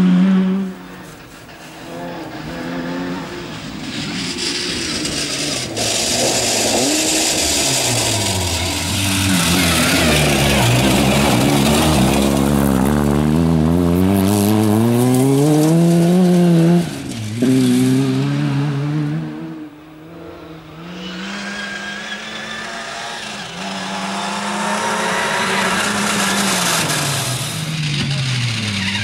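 Opel Astra GSI rally car's 2.0-litre four-cylinder engine revved hard, its pitch climbing and falling over and over with gear changes and lifts, over the hiss of tyres on loose gravel. The sound drops away about a second in, builds as the car comes past at full throttle, breaks off abruptly a little past halfway, then rises again as the car approaches once more.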